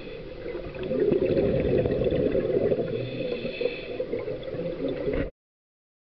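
Scuba divers' exhaled air bubbling from their regulators, heard underwater; it grows louder about a second in and cuts off abruptly about five seconds in.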